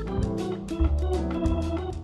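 Upbeat background music: organ chords over a steady drum beat.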